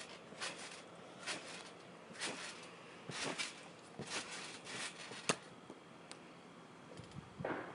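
A person bouncing on a trampoline, giving soft swishing thumps about once a second. A single sharp snap about five seconds in is a Nerf Triad EX-3 blaster firing a dart.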